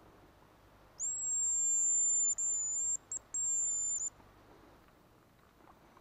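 High, thin hazel grouse whistle: a long held note a second in, then shorter notes with brief gaps, stopping at about four seconds.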